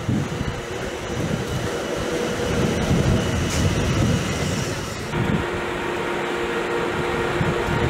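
Old electric locomotive running past on the track, a rumbling rail noise. About five seconds in this gives way to a steady hum with a held tone from the standing ICE prototype power car.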